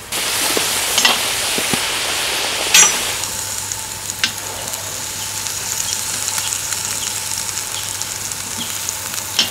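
Young potatoes deep-frying in hot lamb fat in a kazan: a dense, loud sizzle, with the skimmer clinking in the pot about a second in and again near three seconds. About three seconds in the sizzle turns quieter and thinner, as fish sizzle on a thick steel grill grate over coals, with light clicks of a spatula and fork on the grate.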